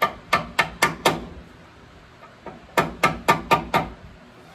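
A metal wrench working a brake line fitting: two quick runs of about five sharp clicks each, roughly four a second, the first at the start and the second about three seconds in.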